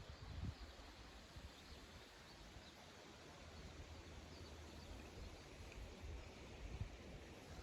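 Faint outdoor background: a steady low hiss with a few scattered faint high chirps, and a brief low rumble at the very start.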